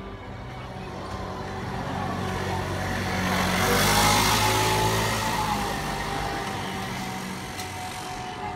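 A motor vehicle passes close by, its engine and road noise swelling to a peak about halfway through and then fading.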